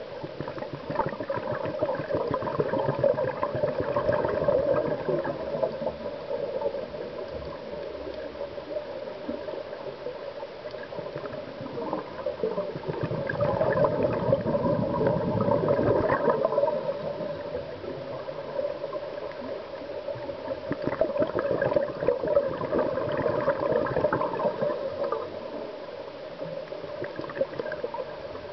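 Scuba regulator exhaust bubbles heard underwater as a crackling gurgle, swelling with each of the diver's exhalations three times and dropping to a quieter hiss in between.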